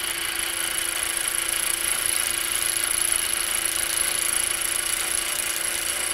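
Milling machine spindle driving a carbide-insert face mill across an aluminium block at a light feed: a steady cutting whir with a constant hum and a high whine, slowly getting a little louder.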